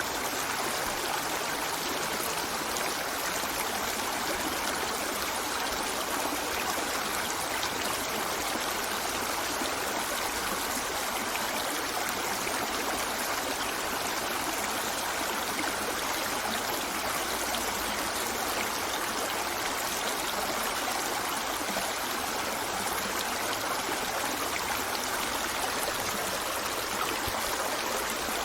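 River water flowing over rocks: a steady rush with fine splashing and trickling, unchanging throughout.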